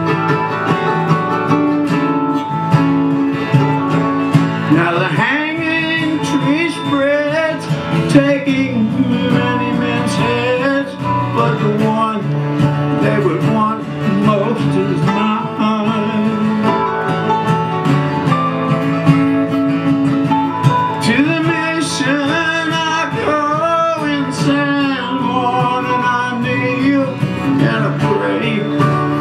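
Live acoustic country music: two acoustic guitars and a mandolin playing steadily, with a wavering lead melody line that comes forward about five seconds in and again past twenty seconds.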